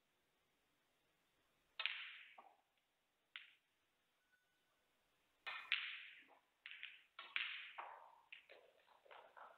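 Snooker balls clacking on the table: sharp knocks of the cue ball being struck and hitting other balls and the cushions. A louder clack about two seconds in and another about five and a half seconds in, followed by several smaller knocks.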